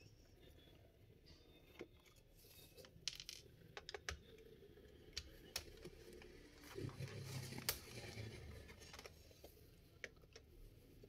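Faint scattered clicks and ticks of screws being undone from the underside of a Sony Vaio laptop with a small screwdriver, with a brief low rumble of handling about seven seconds in.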